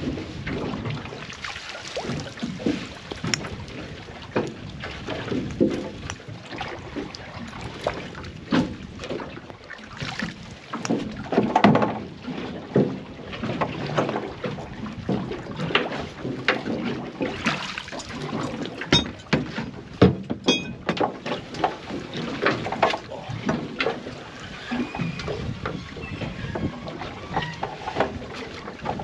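Mullet net being hauled into a small boat: irregular knocks and clatters against the boat over a background of water and wind noise, with no engine running.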